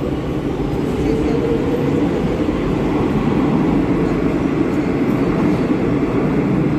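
Madrid Metro train pulling out of the station, its wheels running on the rails in a steady, loud rumble.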